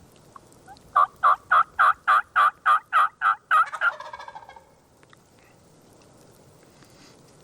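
Turkey yelping: a loud run of about ten evenly spaced yelps, about four a second, trailing off into a quicker, fainter rattle.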